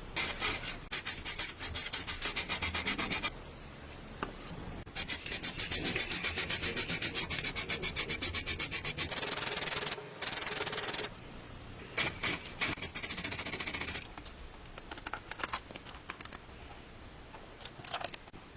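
Hand sanding: fast back-and-forth abrasive strokes on a part, in several runs with short pauses between them. The longest run, in the middle, smooths into a steady scrape before stopping.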